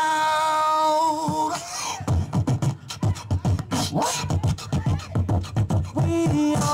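Human beatboxing, live through a stage microphone: a long held vocal tone for about a second and a half, then a fast run of deep kick-drum and snare-like mouth sounds, and another held tone near the end.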